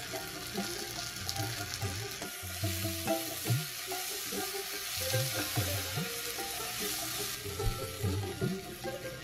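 Onions and ground spices sizzling in hot fat in a nonstick wok, stirred and turned over with a wooden spatula.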